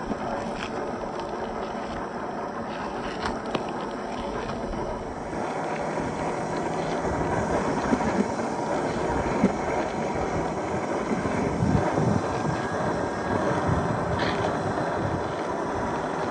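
1/10-scale RC crawler with a brushed 540 electric motor driving over gravel: a faint steady motor and gear whine with tyres crunching over loose stones, and a few small knocks as the wheels hit rocks.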